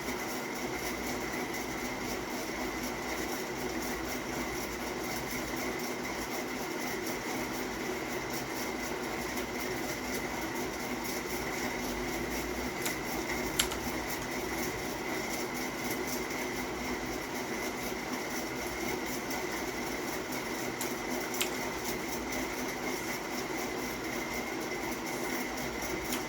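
Steady mechanical hum with a few held tones in it, the kind a fan or air conditioner makes. It is broken by two single sharp clicks, one about halfway through and one later.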